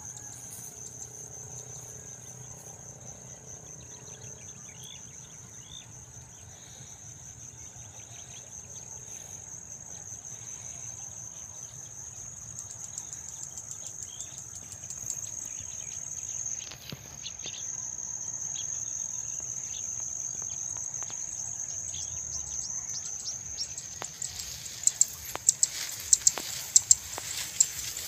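A steady, high-pitched insect chorus trilling over a rice field. Near the end, a burst of rustling with sharp crackles comes in over it.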